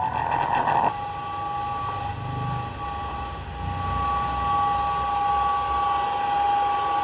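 Sony FX-402A radio-TV-cassette set's speaker: a louder sound cuts off about a second in, leaving a steady whistle of two held tones over a background hiss and a faint low rumble.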